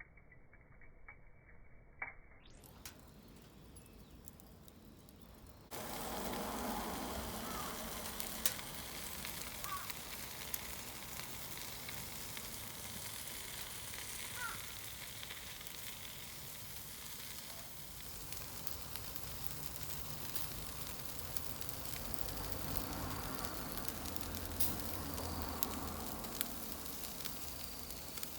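Shrimp sizzling on a grill over binchotan charcoal, a steady hiss with scattered sharp pops. Before it, faint sparse crackling, with the hiss starting abruptly about six seconds in.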